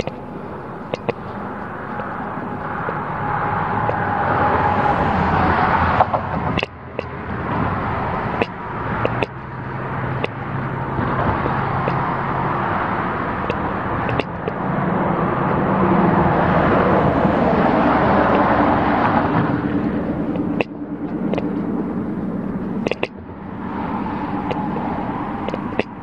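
Highway traffic passing close by, cars and trucks going by in long swells that are loudest about five seconds in and again around sixteen to nineteen seconds, with scattered sharp clicks.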